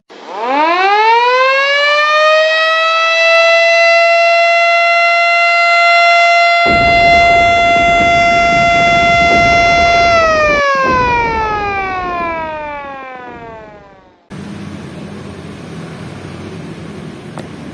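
A civil-defense-style siren sounds, marking the moment of Indonesia's independence proclamation. It winds up over about three seconds, holds one steady tone, then winds down from about ten seconds in and cuts off near the end. A steady low hum follows.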